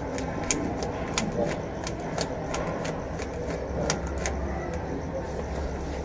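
3x3 Rubik's cube being turned by hand, its layers clicking one or two times a second at irregular intervals, over a steady low background hum.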